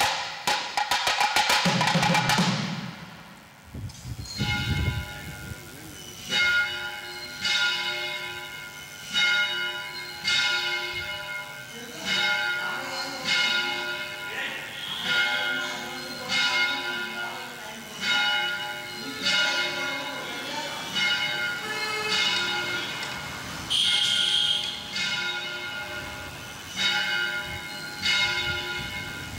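A band of reed instruments and drums finishes its piece about two seconds in. Then a bell is struck steadily, about once a second, each stroke ringing on.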